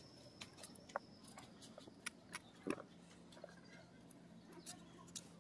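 A few faint, sparse clicks of a kitchen knife cutting raw chayote held in the hand, over near silence.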